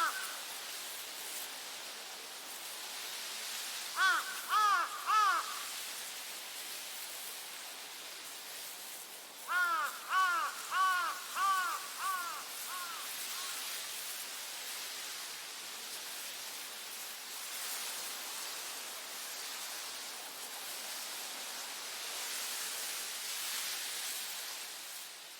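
Crows cawing in two bouts, about four caws a few seconds in and about six around the middle, the last ones fading, over a steady outdoor hiss of ambience.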